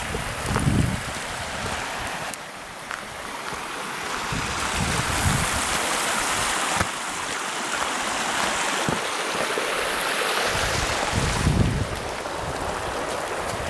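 Shallow mountain stream rushing steadily, louder from about four seconds in, with a few low thumps on the microphone.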